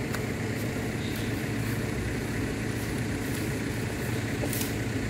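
Ford Everest 4x4's turbo-diesel engine running steadily at low revs, with a few faint ticks over it.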